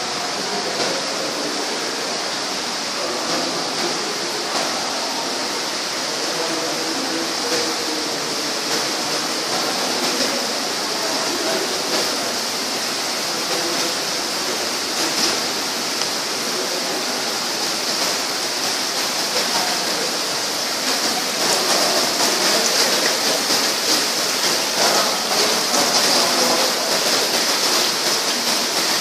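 Water running from taps onto a heap of aluminium pots and pans, a steady splashing that grows louder about two-thirds of the way through.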